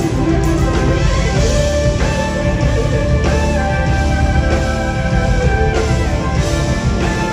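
A live progressive rock band playing loudly, with long held electric guitar notes over dense drums and bass.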